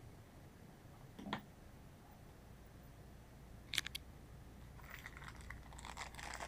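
Thin plastic bag crinkling as it is picked up and handled, from about five seconds in, over a steady low hum. A couple of sharp clicks come a little before it, one about a second in and a louder double click just before four seconds.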